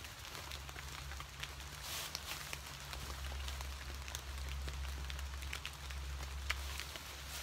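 Rain falling, with scattered individual drops heard as sharp ticks over a steady wash.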